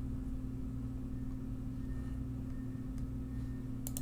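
Steady low electrical hum of room tone, with a faint high whine above it; two quick clicks near the end.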